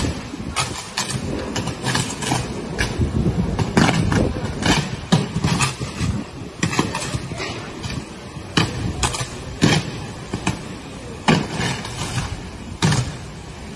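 Hurricane wind and rain rushing and buffeting against the microphone, broken throughout by many sharp cracks and pops from power lines arcing and sparking.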